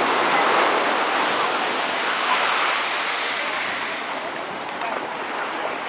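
Small waves washing up on a sandy shore: a steady surf hiss that is loudest in the first second or so and then eases off. Beachgoers' voices are faintly heard behind it.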